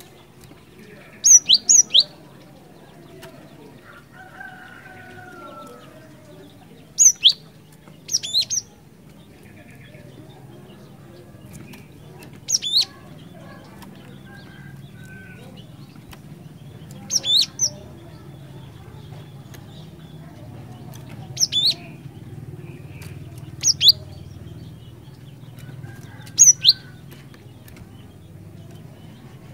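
Cinereous tit (gelatik batu) calling: about eight short phrases of two or three high, sharp, sweeping notes, repeated every few seconds.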